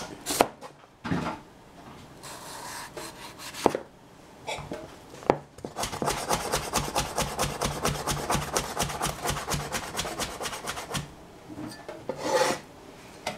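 Cleaver slicing a yellow bell pepper into strips on a cutting board. First come a few single cuts knocking on the board, then about five seconds of quick, even slicing strokes, and a short scrape near the end.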